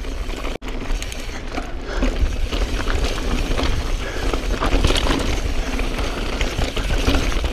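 2016 Specialized Stumpjumper S-Works 27.5 full-suspension mountain bike descending loose, rocky singletrack: tyres crunching and skittering over loose rock, with steady knocks and rattles from the bike, over a low rumble of wind on the microphone. The sound cuts out for an instant about half a second in.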